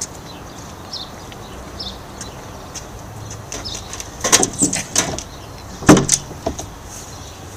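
A few sharp knocks and clatters, a quick run of them past the middle and the loudest single knock about six seconds in, over a steady background hiss.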